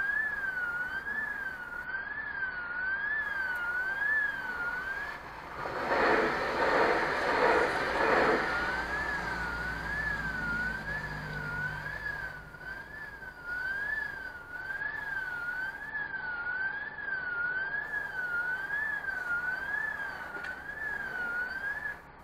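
Level-crossing warning bell: a high electronic tone warbling up and down about one and a half times a second while the barriers are down. A louder rushing noise swells about six seconds in and lasts some two seconds. The warning tone cuts off near the end as the red signal goes out, meaning the crossing is about to reopen.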